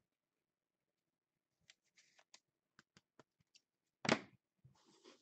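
Scattered light clicks and taps of hands handling cards, then a short loud crinkle about four seconds in and a softer rustle near the end as a foil trading-card pack is picked up.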